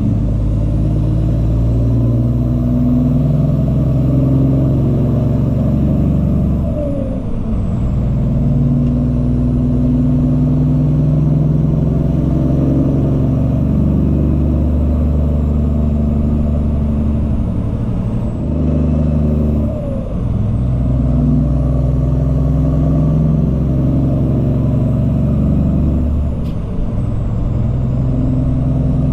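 Cummins ISX diesel of a Peterbilt 379 semi truck running under way, its steady engine note breaking off briefly three times as gears are shifted.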